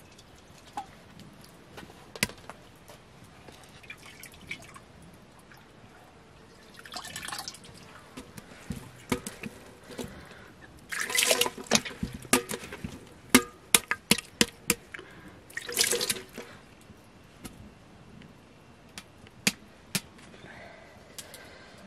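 Hands squeezing and pressing a wet, soft lump in a large metal basin with a little liquid in it: scattered drips and taps at first, then a busy run of wet squelches and clicks against the metal through the middle, thinning out again near the end.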